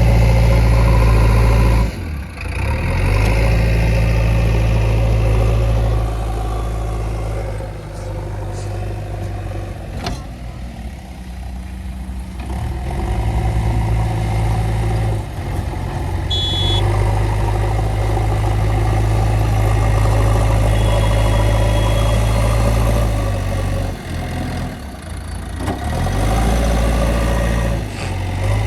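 Heavy diesel engine of the earth-moving and farm machinery running hard, its load rising and easing. It is loud at first, drops off about two seconds in, and quietens for several seconds near the middle. Then it pulls loud and steady again, with brief dips toward the end.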